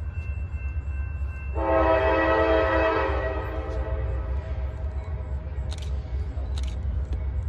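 Locomotive air horn sounding one long blast of several chime notes together, starting about one and a half seconds in and fading away over the next few seconds, over a steady low rumble.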